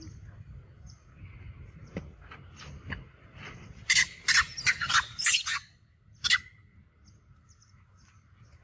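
Macaque screaming: a quick run of about six shrill shrieks in under two seconds, starting about four seconds in, then one more a moment later, during a scuffle in which a larger monkey grabs and pins a smaller one.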